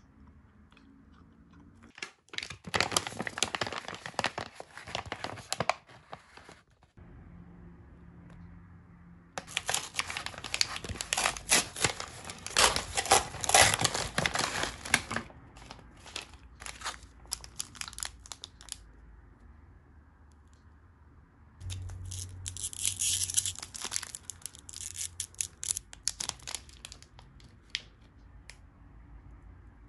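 Crinkly plastic snack packaging being torn open and handled in three bursts with quiet gaps between: a multipack bag of individually wrapped KitKats ripped open and rummaged through, then a single KitKat wrapper unwrapped.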